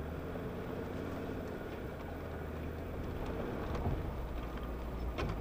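A small engine idling steadily with a low hum, with a few sharp clicks and knocks near the end.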